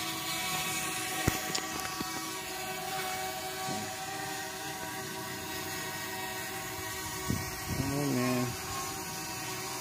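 JJRC X12 Aurora quadcopter's brushless motors and propellers humming steadily as it hovers, a whine made of several steady tones. A sharp click about a second in.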